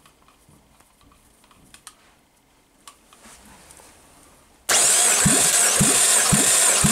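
A few faint clicks as a compression gauge is fitted, then, about two-thirds of the way in, a 1.8-litre EW7A four-cylinder petrol engine is suddenly spun over by an electric motor for a compression test on cylinder three. The loud, steady motor whine is broken by a heavy pulse about twice a second as the cylinders come up on compression.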